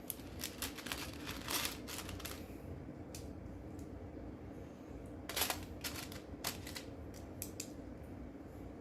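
Plastic Lego bricks clicking as they are handled and pressed together: scattered sharp clicks in two clusters, with a low steady hum underneath.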